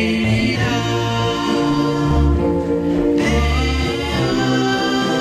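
Early-1960s doo-wop record: a vocal group singing sustained close harmonies over a bass line, the chords changing about once a second.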